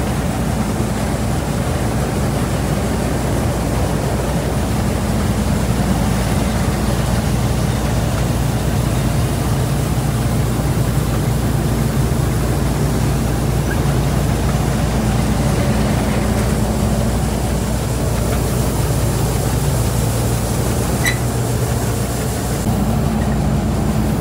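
Rice combine harvester running steadily while harvesting: a constant engine drone with machinery noise, the engine note shifting slightly a couple of times.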